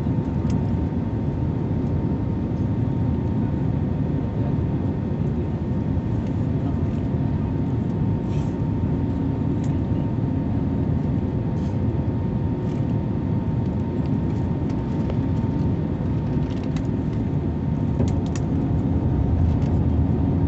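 Airbus A321neo cabin noise in flight: the steady low roar of its CFM LEAP-1A engines and the airflow, heard from a window seat, with a faint steady whine above it and a few light ticks. The aircraft is descending on its approach.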